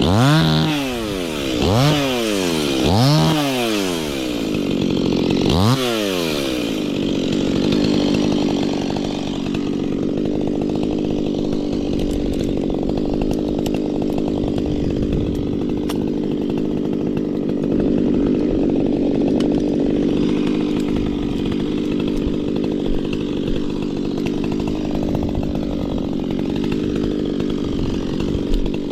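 Stihl two-stroke chainsaw revved up and let back down four times in quick succession, then settling into a steady, even run.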